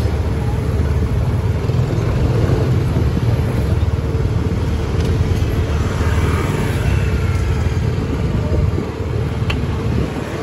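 Motor scooters riding past at close range on a narrow street, their small engines running over a steady low traffic rumble.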